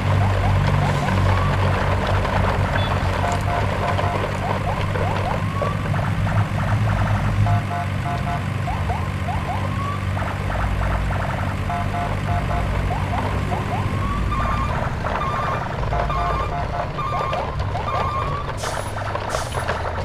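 A steady low truck-engine drone with a repeating electronic siren-like pattern laid over it: groups of short beeps followed by quick rising chirps, recurring every few seconds. There are a couple of brief hissy bursts near the end.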